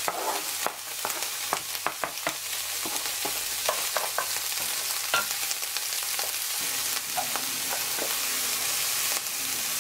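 Chopped onions sizzling in hot oil in a nonstick frying pan, with a steady hiss and frequent short clicks and scrapes of a wooden spatula stirring them.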